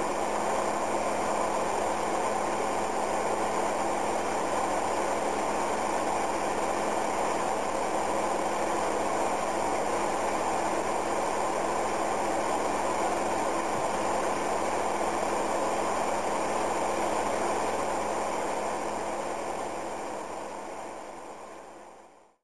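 Bell & Howell 16mm film projector running: a steady whirring noise from the motor and film mechanism with a faint low hum, fading out near the end.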